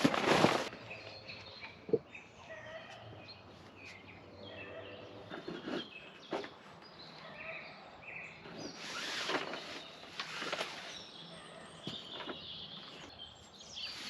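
Birds chirping on and off, with a few short rustles and knocks.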